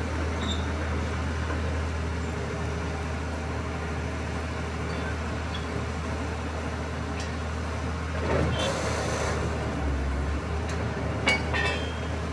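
Truck-mounted borewell drilling rig and its ELGi air compressor running with a steady low drone. A brief hiss comes about two-thirds of the way through, and a few sharp metallic clinks come near the end as a steel drill pipe is handled.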